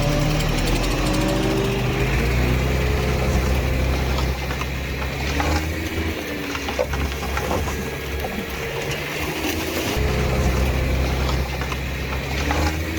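Heavy earthmoving machine's diesel engine running, its revs rising and falling, with a few brief clanks.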